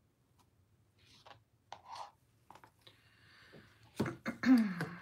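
Small clicks and scrapes of a plastic mixing cup and wooden stir stick being handled, then a sharp knock as the cup is set down about four seconds in, followed by a short tone sliding down in pitch.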